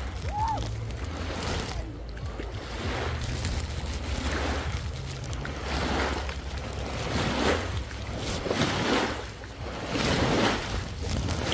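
Small waves lapping and breaking on a sandy lake shore, washing in one after another about a second apart, over a low steady rumble.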